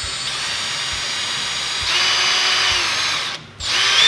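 Electric drill with a small bit boring a hole down the centre of a dollhouse fridge door for a nail hinge, running with a steady whine. About two seconds in it speeds up and gets louder, then stops briefly near the end and starts again.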